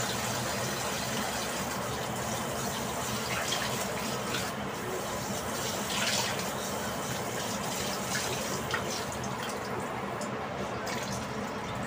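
Kitchen tap running into a stainless-steel sink while hands wash under the stream, with a splash or knock now and then.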